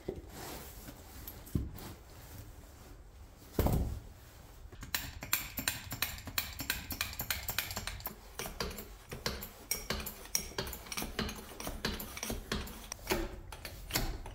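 Hydraulic bottle jack being pumped by hand to lift a tractor's front end. There is a thump about four seconds in as the jack is set, then a steady run of metallic clicks and clinks as the handle is worked and the ram rises.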